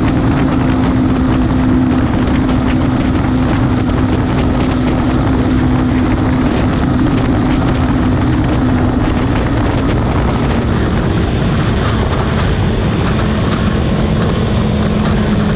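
Suzuki Raider 150 Fi motorcycle engine running at highway cruising speed under heavy wind rush on the microphone. Its steady drone drops a little in pitch about two-thirds of the way through as the bike slows.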